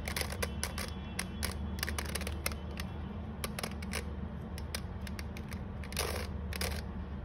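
3x3 Rubik's cube being turned by hand, its plastic layers clicking and rattling in quick irregular snaps.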